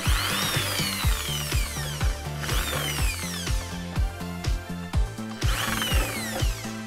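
Electric drill boring holes through the thin sheet-steel case of a DVD drive: three bursts, each whining up quickly in pitch and then slowly falling. Background music with a steady beat plays underneath.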